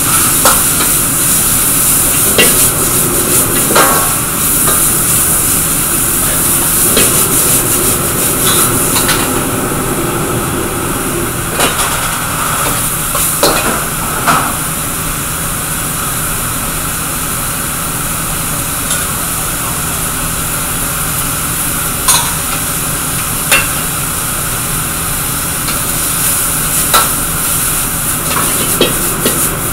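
Vegetables sizzling in a hot wok as a metal ladle stirs and scrapes them, with a sharp clank of ladle on wok every few seconds. The sizzle is strongest in the first nine seconds or so, then eases.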